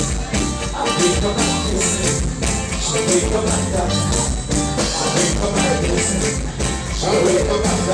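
Dance music with a steady beat and heavy bass.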